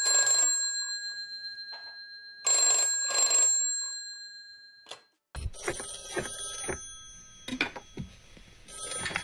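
Electromechanical bell of a British rotary-dial telephone (BT 8746, GPO 746 style) ringing in short double rings that die away, stopping as the handset is picked up. About five seconds in, a film's telephone-ring sound effect follows, its bell pitch wavering slightly as a played-back recording does, with a few sharp knocks.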